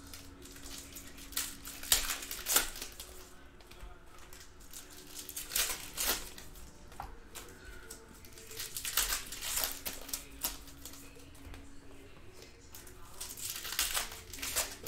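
Trading cards being handled: foil card-pack wrappers crinkling and stiff cards clicking as they are flicked and laid on a stack, in short bursts of rustles and clicks every few seconds.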